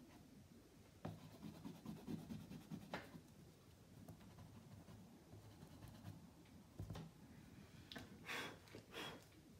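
Faint scratching and rubbing of charcoal and eraser on cartridge paper as a charcoal drawing is touched up, with a couple of light clicks.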